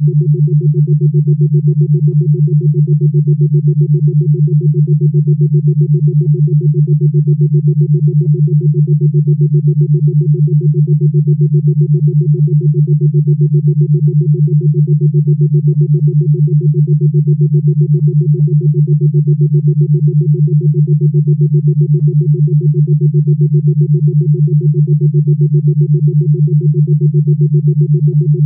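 Steady low synthesizer drone that pulses evenly several times a second, with a fainter higher tone above it.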